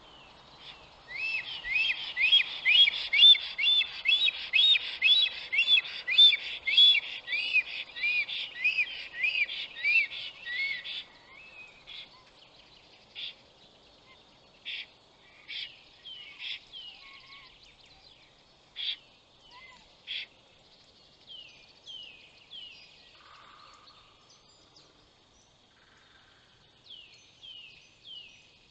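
Bird calling close to the microphone: a fast run of arching chirps, about two a second, for some ten seconds, then scattered short calls and clicks.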